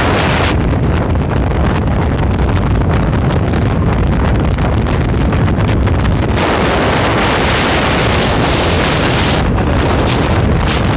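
Wind buffeting the microphone over the steady low rumble of a vehicle moving at highway speed. The hiss grows brighter about six seconds in.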